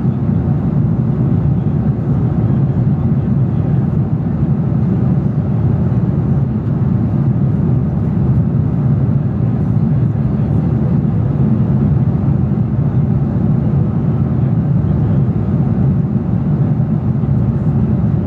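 Steady low rumble of jet airliner cabin noise at cruising altitude, heard inside the cabin by a window seat.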